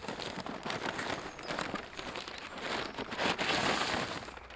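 Paper and plastic packaging rustling and crinkling as items are pulled out of a large paper sack, louder about three seconds in.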